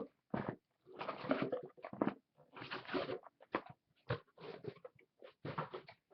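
Cardboard rustling and scraping in short, irregular bursts as a case of sealed trading-card boxes is handled.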